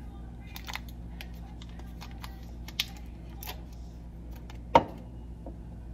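A knife cutting a stick of butter into pieces, with light scattered clicks and taps against the surface beneath and one sharper knock near the end, over a steady low hum.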